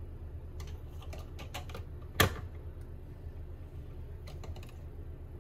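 Light plastic clicks and taps as a plastic tumbler is fitted onto an ihave wall-mounted toothbrush holder, with one sharp, louder click about two seconds in.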